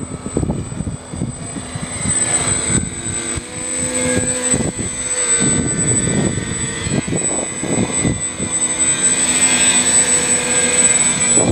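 Twin electric motors and propellers of an RC plane running in flight overhead, a steady high whine that grows louder toward the end, over irregular low rumbling.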